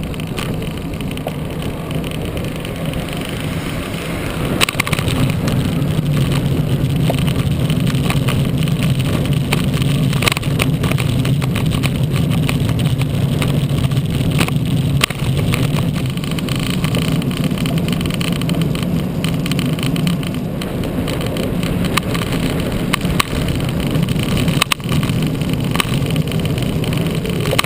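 Steady rush of wind over a bike-mounted camera's microphone, with tyre and road noise from a road bike riding at speed on wet tarmac; it gets louder about four seconds in, and a few sharp knocks come through.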